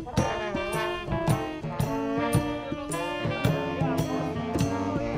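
Small street band playing: saxophone and horn lines over a bass drum and cymbal keeping a steady beat a little under two strokes a second.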